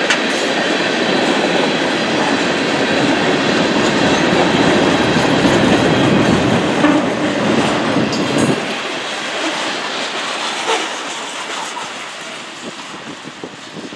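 Freight train's tank cars and covered hoppers rolling past, their steel wheels clacking over the rail joints. The low rumble drops away about two-thirds of the way through as the end of the train goes by, leaving lighter wheel noise and scattered clicks that fade.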